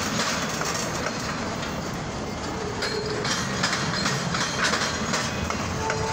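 A freight train of empty bulkhead flatcars rolling past, wheels clicking over the rail joints with an irregular clatter. A short, faint squeal sounds about halfway through and again near the end.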